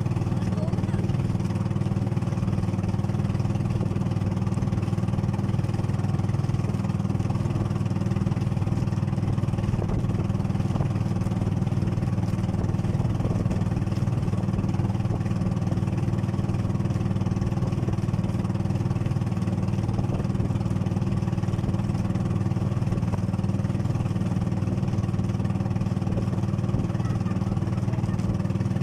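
Outrigger boat's engine running steadily under way, a constant low drone with no change in speed.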